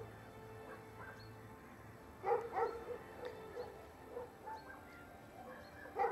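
A dog barking: a quick run of several barks a little over two seconds in, a few single barks after it, and another run starting near the end.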